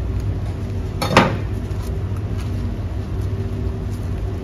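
Steady low hum of commercial kitchen equipment at a chargrill, with a single short clatter about a second in.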